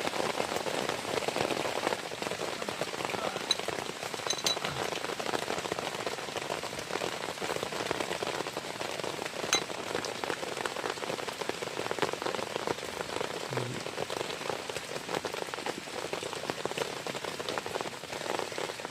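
Heavy rain falling steadily, with a few sharp clicks, the loudest about a third and half of the way through.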